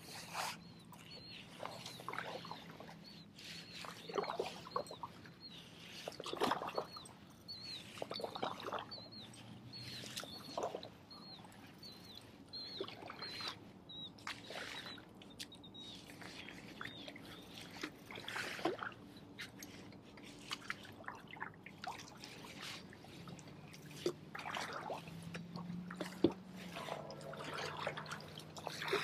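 Paddle strokes in shallow, duckweed-covered marsh water, with water trickling and dripping off the blade between strokes. A faint high chirp repeats about twice a second through the first half.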